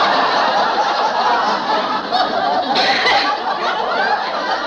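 Audience laughter, many people laughing together in one long, sustained laugh.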